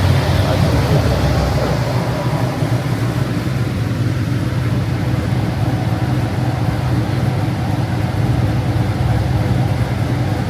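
Cammed Camaro's engine running steadily with a deep, even drone, not revving.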